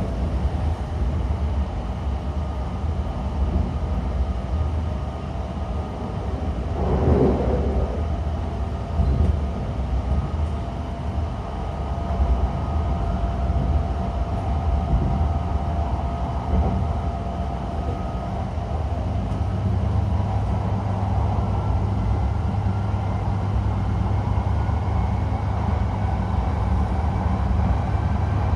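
E5 series Shinkansen heard inside the car: steady low wheel-and-rail rumble with the faint whine of its IGBT-VVVF traction inverter, thought to be a Toshiba unit, whose tones climb gradually in the second half. A brief whoosh about seven seconds in.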